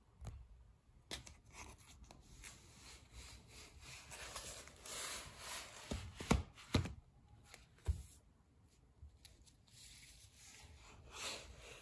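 A kitten clambering over cardboard LP sleeves: soft, irregular rubbing and scuffing of paws and fur on card, with a few sharp knocks about six to eight seconds in.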